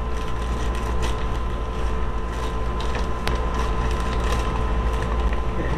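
Plastic shipping bag crinkling and rustling as it is handled and turned over, with scattered small crackles and clicks. A steady low hum and a faint steady tone run underneath.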